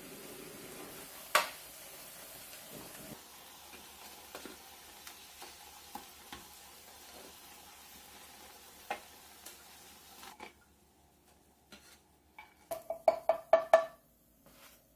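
Battered eggplant slices sizzling in shallow oil in a frying pan, with metal tongs clicking against the pan as the slices are turned and lifted out; the sizzle dies away about ten seconds in. Near the end comes a quick run of about eight sharp, ringing clinks.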